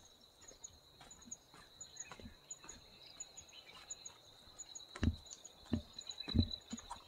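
Footsteps on a dirt trail, growing heavier about five seconds in, at a steady walking pace of roughly three steps every two seconds. Under them runs a steady high insect drone with faint bird chirps.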